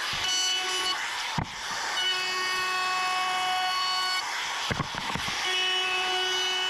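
Compact trim router running at speed with a high, steady whine while it cuts a roundover along the edge of an oak board. The whine comes in three stretches, broken twice by a short knock.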